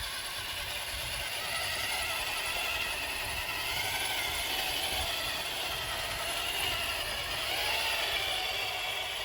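Radio-controlled CXT truck driving, its dual electric motors and gearbox whining, the pitch rising and falling a couple of times with the throttle. The gear whine comes from the three big pinion gears of the dual motor mount.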